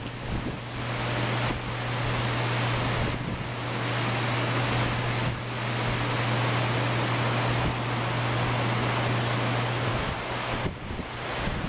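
Pacific Ocean surf breaking on a sandy beach: a continuous rush of waves that swells and eases every few seconds, with wind on the microphone. A steady low hum runs underneath and stops about ten seconds in.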